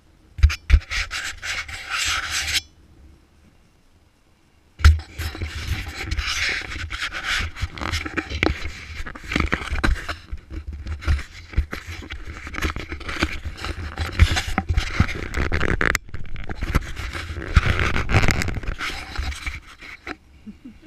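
Handling noise on the camera's microphone: close rubbing and scraping with knocks and a heavy low rumble, as skin or clothing brushes against the camera. A short burst comes first, then after a pause of about two seconds a long stretch that stops shortly before the end.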